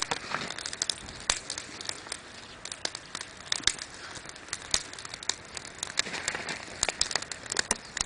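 Wood fire of a burning pallet in a metal fire bowl, crackling and popping in quick, irregular snaps.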